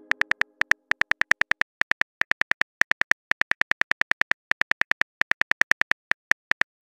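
Phone keyboard click sounds as a text message is typed out letter by letter: a quick run of short, even clicks, about seven a second, with brief pauses between words.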